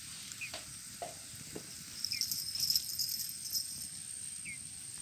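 Insects chirping steadily at a high pitch, with a burst of faster, louder chirping about halfway through and a short chirp roughly every two seconds. A few sharp pops come from the open wood fire crackling in the first second or two.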